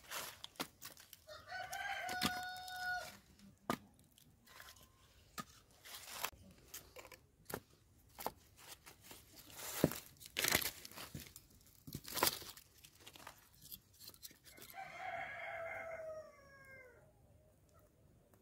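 Split firewood being handled and stacked: many sharp wooden knocks and clatters. A rooster crows twice in the background, about a second in and again near the end, the second crow falling away in pitch.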